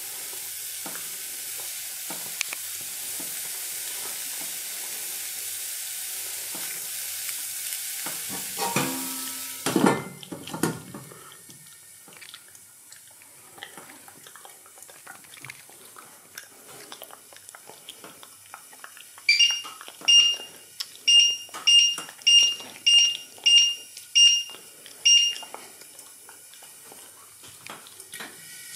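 A steady hiss from the open pot of boiling vegetable pieces, cut off about ten seconds in by the clatter of a glass pot lid being set on. Later the glass-top hob's touch controls give a run of about ten short, identical high beeps, roughly two a second.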